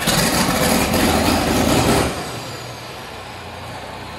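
John Deere 4440's six-cylinder diesel, straight-piped with no muffler, just started: running loud for about two seconds, then settling to a steady idle.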